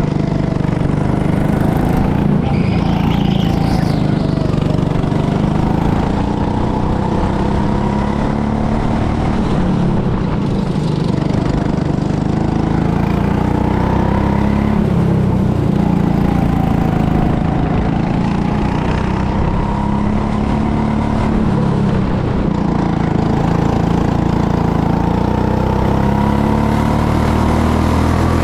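Go-kart's small engine running under load as the kart is driven, its pitch rising and falling as the throttle opens and closes.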